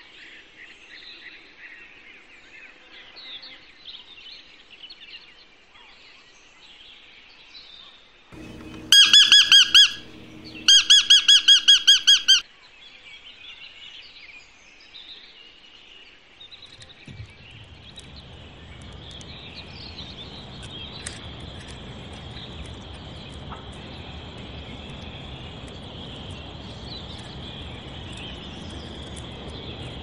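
Animal calls. Faint high chirping is followed by two loud runs of rapid, high-pitched repeated notes about nine seconds in, then a steady high trill over background noise in the second half.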